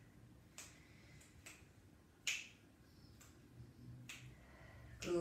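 Soft, sharp snaps repeating at a slow, fairly even beat of a little under one a second, the loudest just past the middle, over faint room noise.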